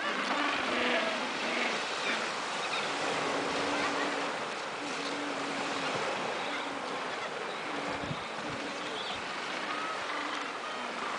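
Small waves lapping and washing onto a pebble beach, a steady hiss of surf, with faint short tones now and then in the background.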